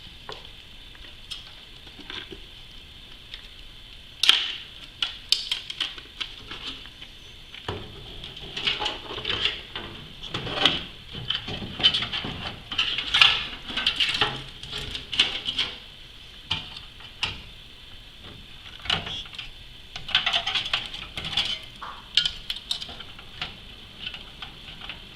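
Irregular clicks, taps and light rattles of a motherboard being lowered and shifted into place in a PC case, board and hands knocking against the case's metal panel, with a sharper knock about four seconds in.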